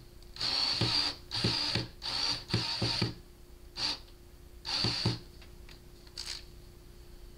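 Small electric motor of a power screwdriver or drill run in short bursts, about seven over five seconds, each well under a second, backing out the screws that hold the speaker's tweeter.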